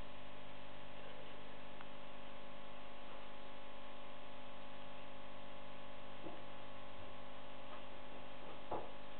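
Steady electrical hum made of several held tones, with a couple of faint small knocks in the last few seconds.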